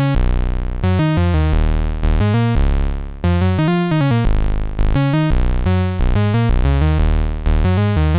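Nord Wave 2 synthesizer playing a bass line on a harsh, bright synth-bass patch with reverb on it. The line is a run of sharply attacked low notes, with a few sliding in pitch.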